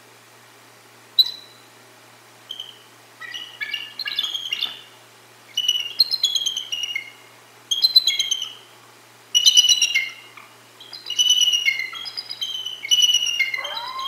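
Bald eagles chortling: one sharp high note, then repeated bursts of high, chattering, falling whistled notes about every two seconds. Near the end a lower, long drawn tone rises in and holds, the start of a coyote howl.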